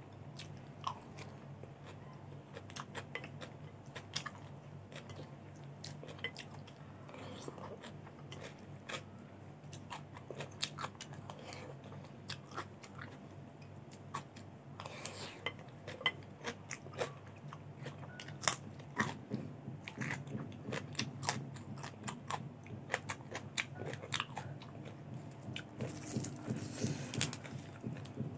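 Close-up chewing and biting of raw, crunchy vegetables such as cucumber, mixed with rice, heard as many irregular crunches and wet mouth sounds. A steady low hum runs underneath.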